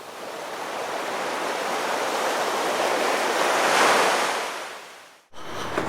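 Ocean surf washing onto a beach, swelling to a peak about four seconds in and then fading away.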